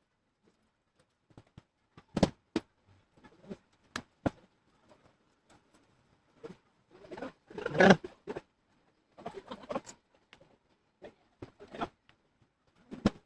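Scattered sharp clicks and taps with bursts of rustling handling noise, typical of plastic laptop parts and screws being handled during a teardown.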